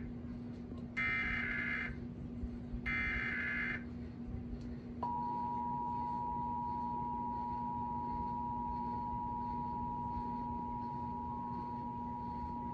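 Emergency Alert System test received off the air: two buzzing one-second bursts of SAME digital header data, a second apart, then about a second in which only a faint steady hum is heard, then the two-tone EAS attention signal, two steady tones sounding together and held for about eight seconds.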